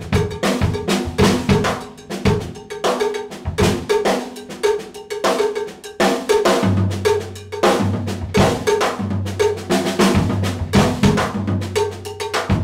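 Drum kit played in an Afro-Cuban-influenced groove: a dense, rapid run of snare, tom and bass drum strokes with sharp rim-like accents. From about seven seconds in, a low drum note rings on between the strokes.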